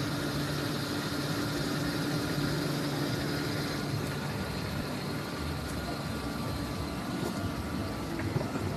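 A car engine idling with a steady low hum over outdoor background noise; the hum fades somewhat about halfway through.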